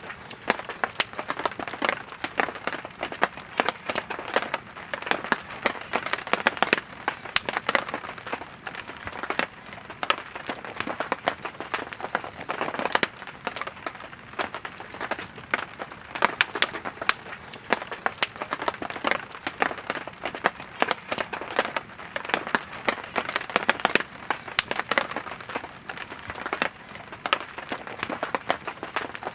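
Firewood burning in a campfire: continuous crackling, with frequent sharp pops and snaps over a steady hiss of flames.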